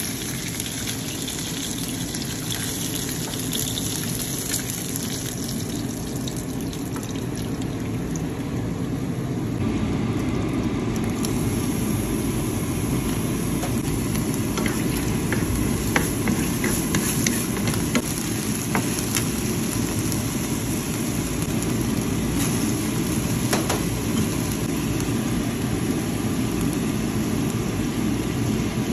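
Hot oil sizzling in a frying pan: chicken thighs frying in their own fat, then chopped garlic and ginger sautéing in the leftover chicken oil. The sizzle grows louder about ten seconds in, with scattered sharp ticks and pops after that.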